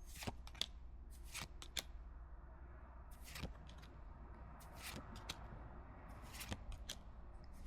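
Pokémon trading cards being handled and flipped through: soft, irregular flicks and slides of card against card, a few longer sliding rustles among them.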